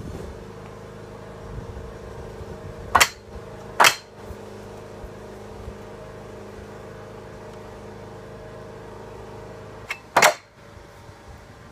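A metal bar knocking against the wooden pegs and posts of a backyard ninja course: three sharp knocks, about 3 s in, just under a second later, and a double knock near 10 s. Under them a steady low hum continues, easing off after the last knock.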